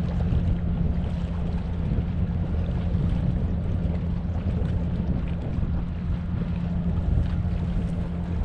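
Wind buffeting the microphone, a steady low rumble, over a faint constant low hum.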